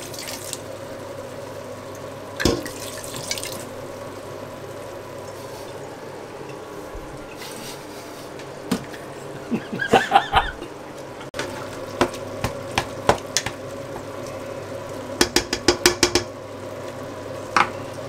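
A pan of beef sauce cooking with white wine just added: a steady liquid hiss over a faint hum, with a spoon knocking against the pan and cookware now and then, and a quick run of taps near the end.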